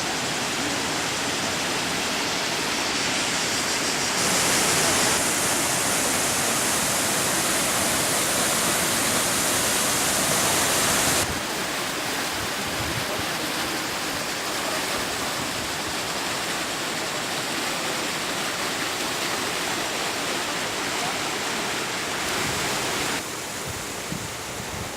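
Waterfall rushing: a steady hiss of falling water. It jumps louder about four seconds in, drops back about eleven seconds in, and drops again near the end.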